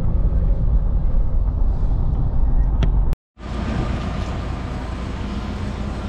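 Steady low rumble of engine and road noise inside a moving vehicle. It cuts out briefly a little over three seconds in, and a steady, brighter rushing noise follows.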